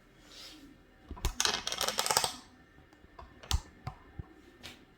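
A quick run of clicks and rattles lasting about a second, then a few separate clicks and knocks, from the mini portable washing machine being handled and set up to rinse.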